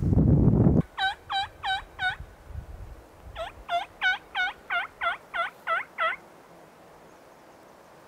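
Hunter's turkey call yelping: a run of four yelps, then after a short pause a run of nine, sent out to draw a gobble from the valley below. A loud low rumble fills the first second.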